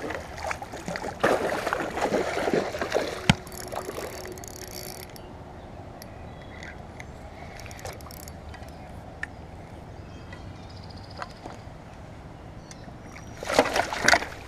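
Water splashing in short bursts over the steady rush of creek water, with a sharp click about three seconds in and another burst of splashing near the end.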